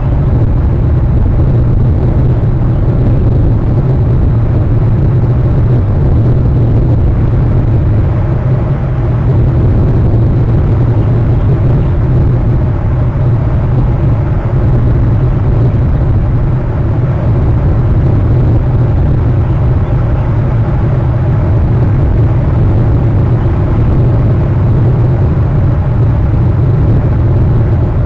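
A loud, steady low rumble with a fainter hiss above it, unchanging throughout, with no distinct events.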